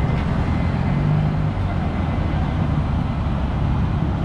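Scooter engines idling with a steady low hum.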